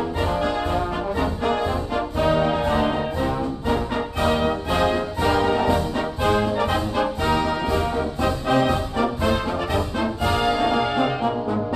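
Background music: orchestral brass playing sustained chords over a steady beat.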